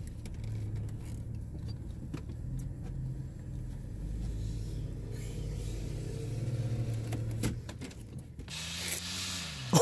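Hummer H2's V8 engine running under load, heard from inside the cab, with its revs climbing slightly about halfway through and light knocks and rubbing in the background. Near the end the engine sound gives way to a hiss.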